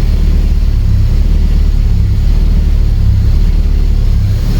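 Acura RSX's 2.0 L four-cylinder engine running steadily with a loud, even low drone.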